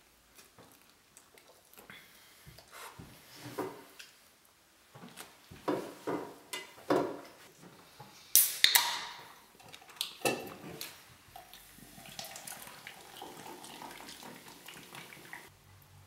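Small clicks and handling noises of eating at a table, then, about eight seconds in, a sharp crack and hiss as an aluminium beer can is opened. From about eleven seconds, a steady pour of beer into a mug runs for several seconds.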